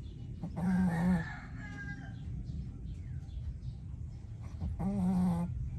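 A pet snoring in its sleep: two snores about four seconds apart, each a short, steady, low-pitched sound about half a second long.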